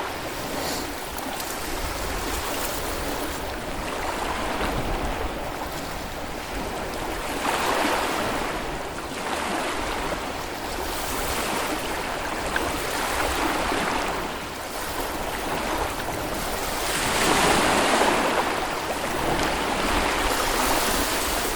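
Small Baltic Sea waves breaking and washing onto a sandy beach, the surf swelling and easing every few seconds, loudest near the end.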